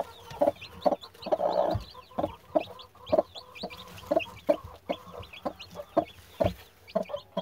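Broody hen clucking in short low notes, about two a second. Newly hatched chicks peep in high, quick chirps over it.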